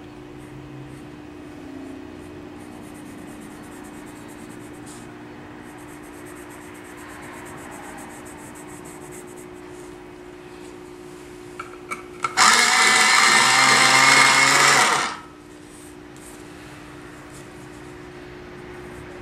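An electric pencil sharpener whirs for about two and a half seconds, grinding a colored pencil, just after a few clicks. Around it, faint scratching of a colored pencil on paper over a low steady hum.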